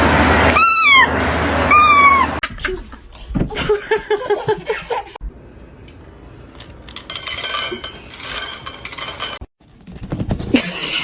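A cat meowing twice, about a second apart, each a short high call falling in pitch, over a loud hiss. Scattered knocks and rustling noises follow.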